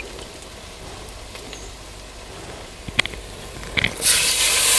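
Spiced mustard oil frying quietly in a clay pot, with a couple of sharp clicks near three seconds in. About four seconds in, water poured from a ladle hits the hot oil and it breaks into a loud, steady sizzle: a little water added to let the spice paste cook down.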